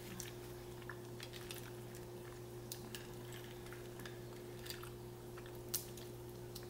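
Faint, scattered clicks and crackles of a boiled crawfish shell being peeled apart by hand, over a steady low hum.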